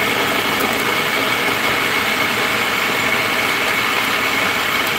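Food processor motor running steadily with a high whine, its blade chopping onions, tomatoes and carrots into a fine mince.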